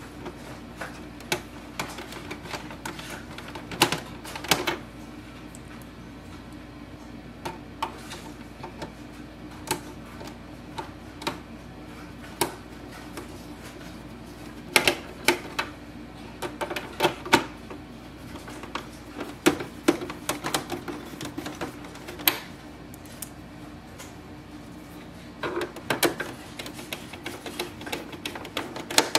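Irregular clicks and knocks of screws, a screwdriver and the printer's plastic housing being handled as the screws are put back, some in quick clusters, over a faint steady hum.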